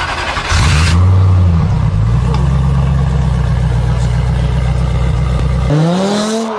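Car engine sound effect under a logo intro: a steady low engine drone, then the engine revs up in a rising sweep near the end.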